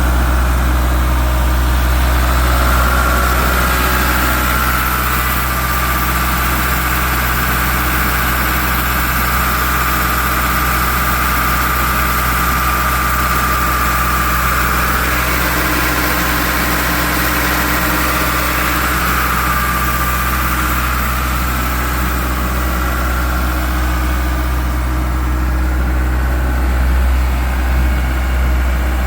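Ingersoll Rand 250 CFM portable air compressor running steadily on its John Deere 4045 four-cylinder turbo diesel, with a deep constant drone. A higher whine swells in the middle and eases off about two-thirds of the way through.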